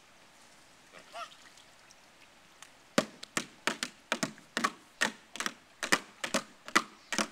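A quick, uneven run of about a dozen sharp slaps, roughly three a second, as a small child beats at a plastic paddling pool and its water. A child's short high voice sounds once about a second in.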